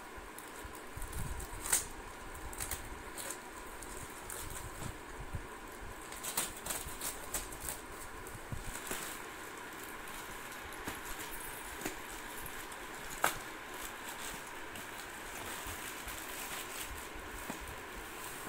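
Plastic courier mailer bag crinkling and rustling as it is slit open with a box cutter and handled, with scattered crackles and a couple of sharp clicks.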